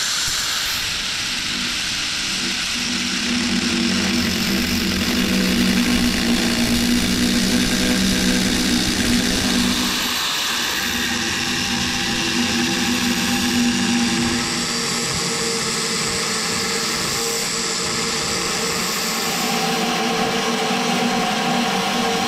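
Tractor engine running steadily, its note changing briefly about ten seconds in.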